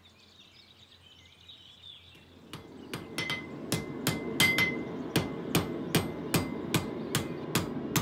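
A hand hammer forging a red-hot steel knife blade held in tongs on an anvil. Sharp, even strikes come about two and a half times a second, some ringing, starting a couple of seconds in after faint bird chirps.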